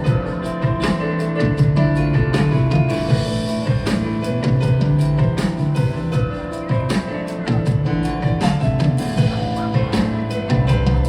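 Live band music: a drum kit keeps a steady beat with kick drum, under bass and sustained held chords, in an instrumental passage of the song.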